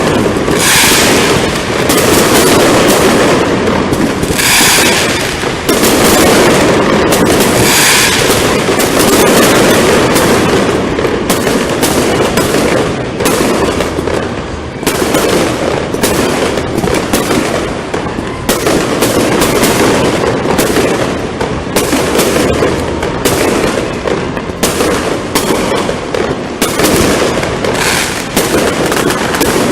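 Fireworks display going off in a loud, continuous barrage of rapid bangs and crackling, with a few brighter bursts of high crackle standing out.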